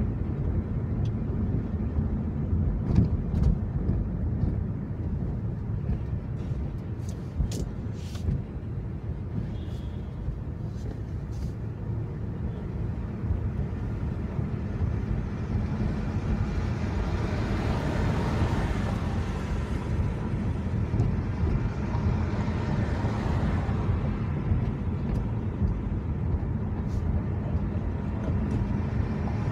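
Steady low rumble of car road and engine noise heard from inside the cabin as the car drives and then waits in traffic, with a few light ticks early on. A louder hiss from a passing city bus swells and fades about halfway through.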